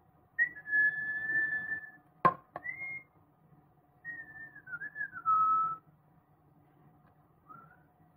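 A person whistling a few notes: a long held note, a short rising one, then a wavering note that falls in pitch. A single sharp click comes between the first and second notes.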